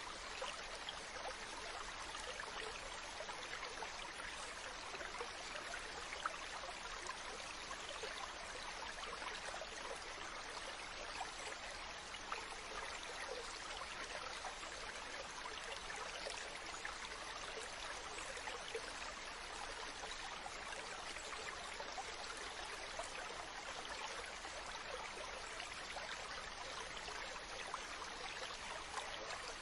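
Mountain stream running steadily over rocks, with small splashes and gurgles in a constant rushing flow.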